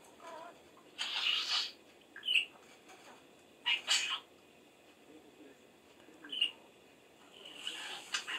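Frilled budgerigar sneezing several times in short, hissy bursts, with a couple of brief chirps in between.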